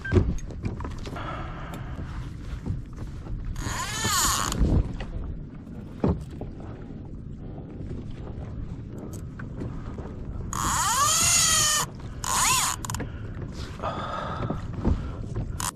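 Fishing reel's drag buzzing in several bursts that rise and fall in pitch as a hooked fish, here a shark, pulls line off against it. The longest burst runs for more than a second, about eleven seconds in.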